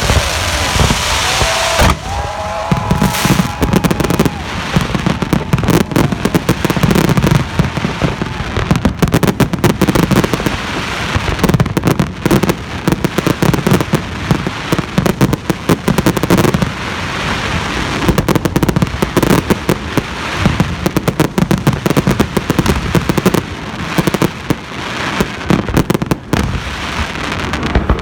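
Fireworks going off in a dense, continuous barrage of bangs and crackling, with hardly a break.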